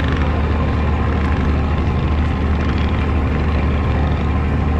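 Fountain fireworks in a display, giving a continuous rumbling roar with no separate bangs.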